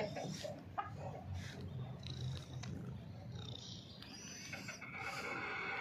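Chickens calling: short high-pitched calls in the middle, then a longer drawn-out call starting near the end.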